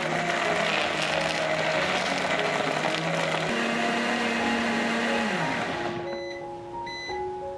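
Countertop blender running at speed, crushing ice and blending milk, ice cream and Kitkat into a milkshake. About five and a half seconds in, the motor cuts off and winds down with a falling pitch, leaving soft background music.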